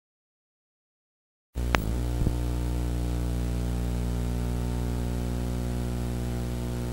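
Dead silence, then about a second and a half in a steady electrical mains hum with many overtones comes in, with two sharp clicks just after it starts.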